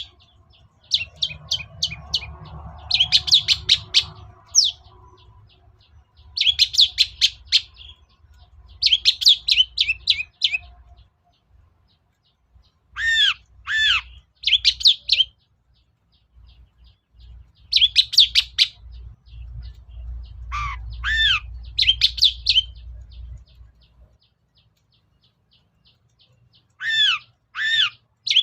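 Long-tailed shrike (cendet) singing in repeated phrases of fast, rattling high notes about a second long, broken by short pauses, with a few separate arched whistled notes. A faint low rumble lies underneath.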